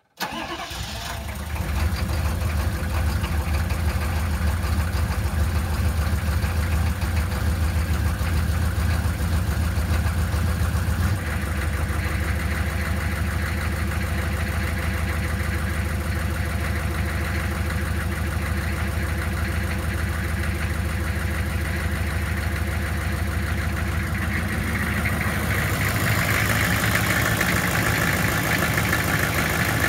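An engine running steadily after starting. Its sound comes in abruptly, builds to full level over about two seconds, shifts in tone about eleven seconds in, and grows brighter near the end.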